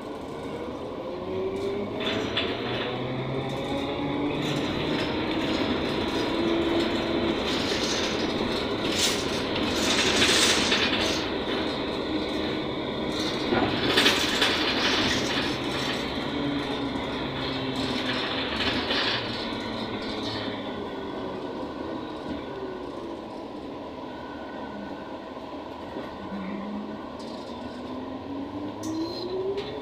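ZiU-682G trolleybus heard from inside while it drives: the electric traction motor's whine rises in pitch as it picks up speed, over road and body noise that grows louder around the middle. Later the whine falls as the trolleybus slows, then starts to rise again near the end as it pulls away once more.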